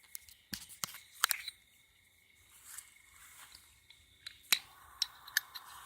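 A handful of sharp, scattered clicks and handling noises as a butane lighter is worked to light the fuse of a small novelty firework, the loudest click about four and a half seconds in.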